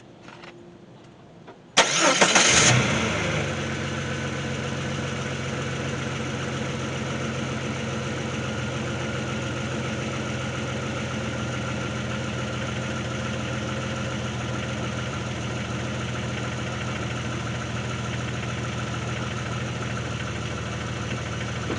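Jeep 4.0-litre inline-six engine started with its oil drained: it catches about two seconds in with a brief louder burst, then idles steadily. It is run nearly dry so the oil pump pushes the last oil out of the engine and oil filter.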